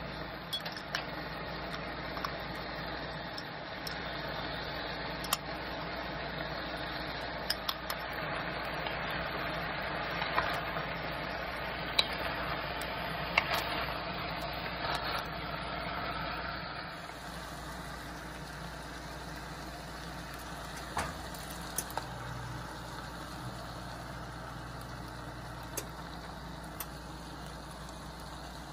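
Okra frying in oil in an enamelled pot, a steady sizzle with scattered sharp clicks of a wooden spoon knocking against the pot. The sizzle turns quieter a bit past halfway through.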